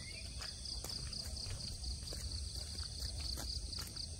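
Insects chirring in a steady, high-pitched, finely pulsing drone, with a short bird chirp right at the start. Faint ticks of footsteps on paving and a low rumble sit underneath.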